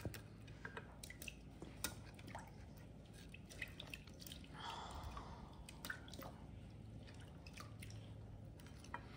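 Faint wet squishes and soft clicks as peeled boiled eggs and sliced onions are dropped by hand into an enamel pot of beets in pickling liquid.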